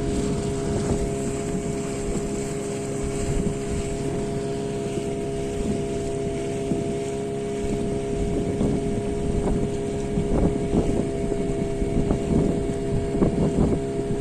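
Motorboat engine running at a steady pitch, with wind buffeting the microphone in gusts that come more often in the second half.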